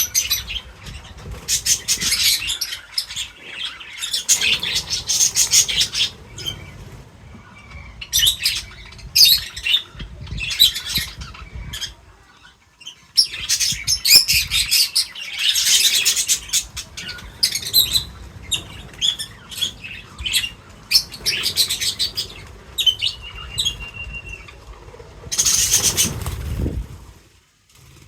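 Small birds chirping in quick bursts of high chirps, several calling at once, with a short steady whistled note a little before the end and a brief louder rush of noise near the end.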